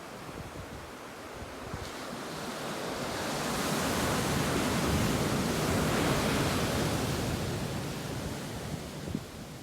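Ocean wave breaking on the shore: the surf noise swells over about three seconds, holds, then fades as the wash draws back.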